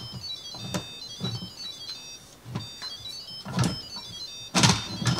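Instant Pot electric pressure cooker playing a short electronic chime tune of high notes stepping up and down, in two phrases, as its lid is closed. Several clunks of the lid and pot being handled fall in among the notes.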